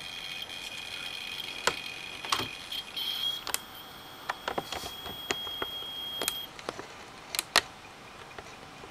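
Running hard disk drive giving a steady high-pitched whistle, which cuts off about six and a half seconds in. Scattered sharp clicks run through it.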